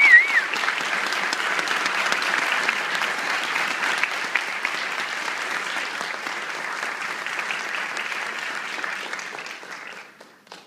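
Audience applauding, a dense patter of clapping that dies away near the end. A warbling whistle from someone in the crowd rides over the clapping and cuts off about half a second in.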